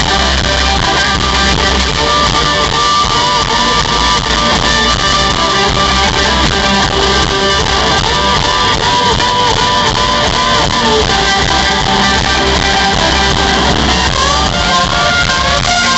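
Live rock band playing an instrumental guitar section: two Les Paul-style electric guitars play lead lines over bass and drums, loud through the stage PA. Quick rising-and-falling guitar phrases come back again and again.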